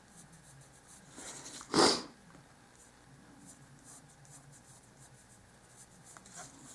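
Pencil lead scratching on white cardstock in short strokes as lines are drawn. About two seconds in there is a brief, loud noisy burst.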